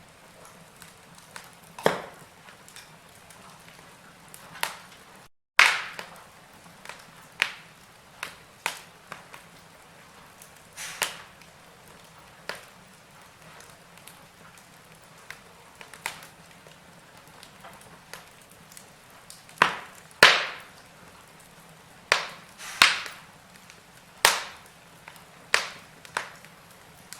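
Wood fire burning in a fireplace, crackling with sharp, irregular pops and snaps over a faint steady hiss. The sound drops out briefly about five seconds in.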